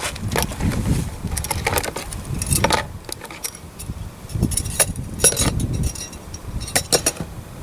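Small die-cast metal parts clinking and rattling in a tub of caustic soda solution, a series of short sharp clinks at irregular intervals over a low rumble.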